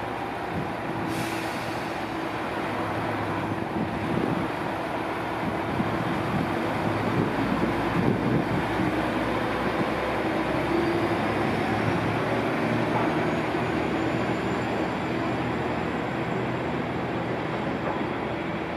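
Matsuura Railway MR-600 diesel railcar pulling away and accelerating, its engine running steadily. A short hiss comes about a second in, and a faint high whine rises midway and then holds.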